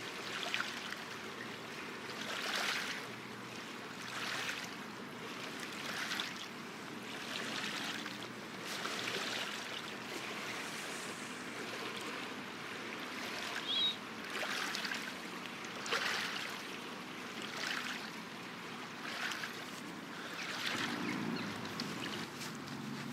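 Small Danube waves washing onto the riverbank shore in a steady rhythm, a swell about every one and a half seconds.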